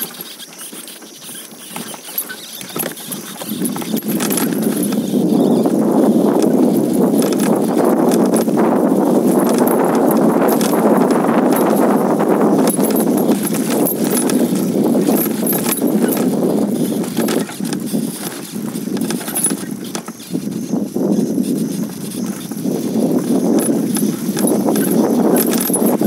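Steady crunching and clattering of loose stones from travel over a rough, rocky dirt track, with many small irregular knocks. It grows louder about four seconds in.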